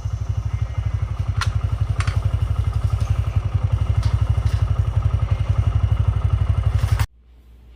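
A machine running with a loud, rapid low throb, with a couple of sharp clicks about a second and a half and two seconds in; it cuts off abruptly near the end.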